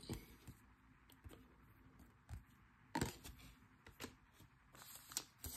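Handling of stiff chrome trading cards: soft clicks and slides as cards are flipped through and set down on a desk, with a sharper tap about three seconds in.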